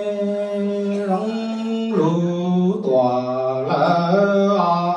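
A man chanting a Hmong txiv xaiv funeral lament into a microphone, carried over a PA. He holds long notes, each sustained about a second, that step up and down in pitch without pause.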